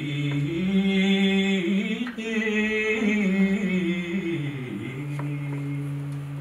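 A man singing unaccompanied in long, held notes that slide from one pitch to the next. Near the end the melody dips and then settles into a final long note.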